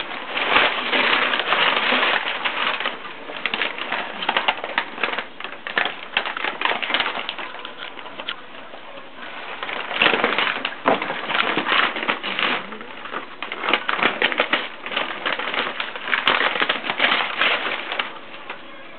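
A black Labrador retriever chewing and tearing wrapping paper: crinkling, crackling paper in uneven bursts, with the loudest stretches near the start and about ten seconds in.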